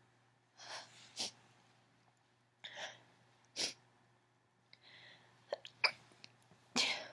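A woman's stifled allergy sneezes: three sharp, held-in bursts about two to three seconds apart, each after a quick catching in-breath, with short sniffs between them.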